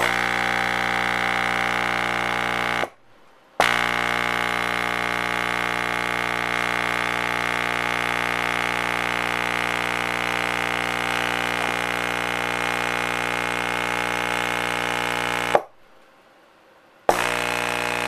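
RE Audio SX 12-inch subwoofer wired straight to a 120-volt wall socket, its cone driven directly by the mains and buzzing with a loud, steady 60-cycle hum. It cuts in suddenly, drops out for under a second about three seconds in, runs again for about twelve seconds, then stops and cuts back in near the end.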